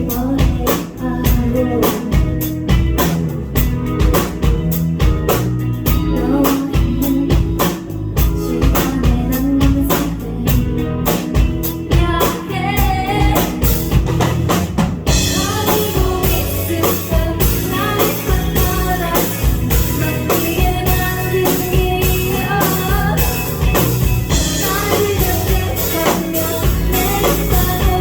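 Live indie rock band playing a song: a singing voice over electric bass, electric guitar and a drum kit keeping a steady beat. About halfway through, the cymbals come in hard and the band gets fuller and louder.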